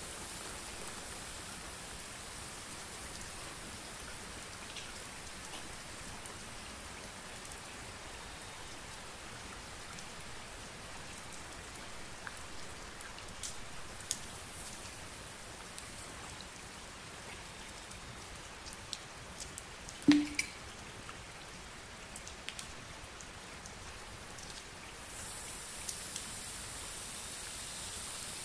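Water trickling onto a heap of crumpled plastic wrap, a steady fine pattering hiss like rain with scattered small ticks. One louder knock comes about two-thirds of the way through, and the hiss turns brighter near the end.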